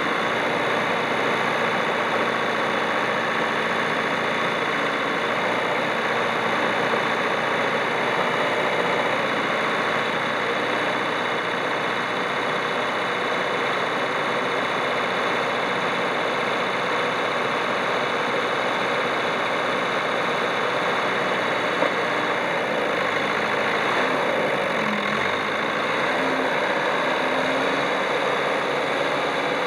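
JCB 214B backhoe loader's diesel engine idling steadily, with a slight change in its low note about 25 seconds in.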